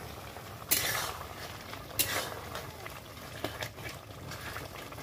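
Metal ladle stirring a bubbling curry in a steel wok over a wood fire, scraping against the pan, with two louder scrapes about a second apart near the start.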